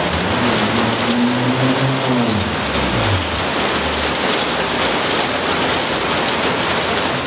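Steady, loud hiss of rain-like noise, with a faint low tone that slides down in pitch about two to three seconds in; the hiss cuts off suddenly at the end.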